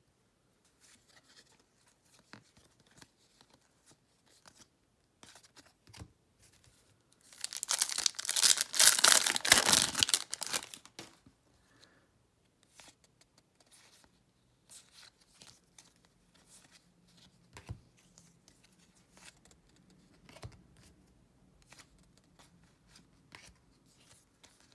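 A loud tearing and crinkling of a trading-card pack's wrapper being ripped open, lasting about three seconds starting around seven seconds in. Around it, faint clicks and slides of baseball cards being flipped through by hand.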